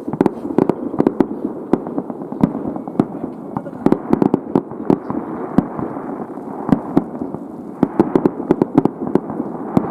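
Aerial fireworks bursting in rapid succession: many sharp bangs, densest about four seconds in and again near the end, over a constant low rumble of the ongoing display.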